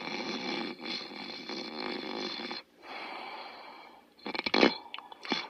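Snoring in sleep: a long snore, then a quieter one, then two short sharp snorts near the end.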